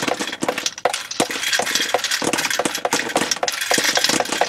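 Powered paintball box magazine running, its feed rattling rounds up through a feed neck, with a steady whir and a rapid clatter of balls knocking together and dropping one after another into a cardboard box.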